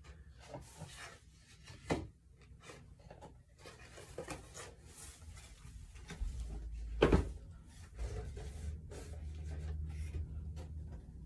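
Toiletry bottles and boxes being handled and set onto closet shelves: scattered knocks and rustling, with a sharp knock about two seconds in and the loudest knock about seven seconds in.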